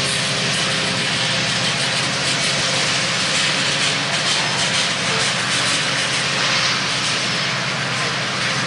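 Union Pacific diesel locomotives running under power with a steady engine drone, freight cars rolling past on the rails with a continuous wheel-on-rail rumble and hiss.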